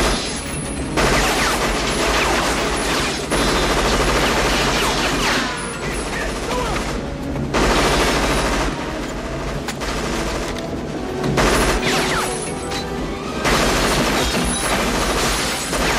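Several long bursts of automatic gunfire from a compact machine pistol, each lasting a second or two with short pauses between them, over a steady low rumble.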